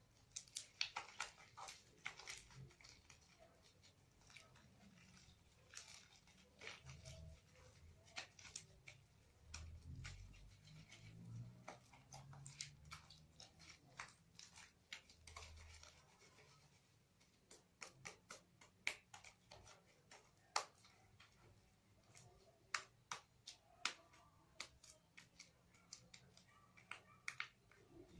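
Slime being mixed: faint, irregular sticky clicks and small pops, with a few soft low thuds in the middle.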